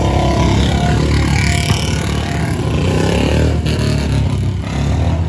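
Motorcycle and tractor engines running close by in slow-moving traffic, a steady low engine rumble.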